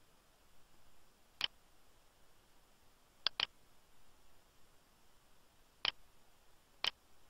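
Computer mouse clicking: a single click about a second in, a quick double-click near the middle, then two more single clicks near the end, over faint room hiss.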